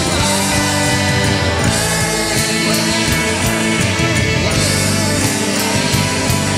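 Rock band playing an instrumental passage: electric guitar with drums keeping a steady beat, bass and sustained keyboard chords.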